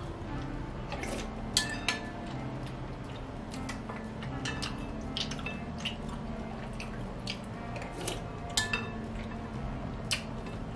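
A spoon clinking and scraping against a glass soup bowl, a dozen or so light, irregular clinks as spoonfuls of soup are scooped up.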